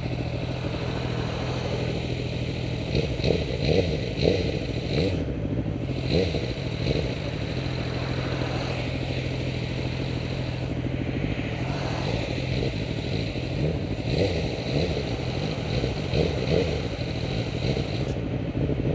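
Sport motorcycle engine idling steadily, with two spells of quick repeated throttle blips, each rev rising and dropping straight back to idle.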